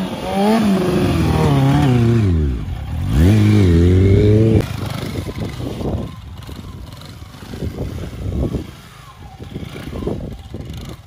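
A small motorcycle engine revving hard in two bursts during wheelies, its pitch rising and falling; the second burst climbs sharply and cuts off suddenly about four and a half seconds in. After that the engine runs much quieter and unevenly.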